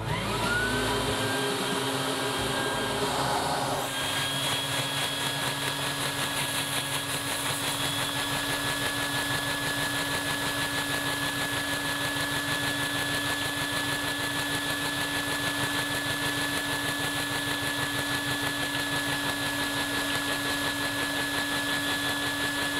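A vacuum cleaner motor spins up with a rising whine and then runs steadily, while a LEGO inline-two pushrod vacuum engine, driven by the vacuum's suction, clatters in a fast, even rhythm.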